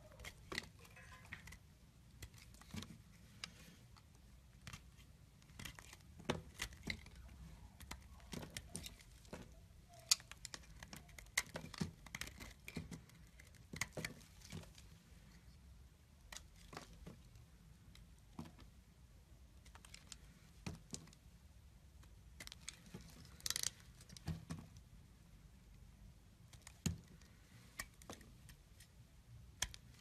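A knife blade shaving and carving a bar of soap: irregular crisp crackles and scrapes as flakes and curls break off, with a louder cluster of crackles about three-quarters of the way in.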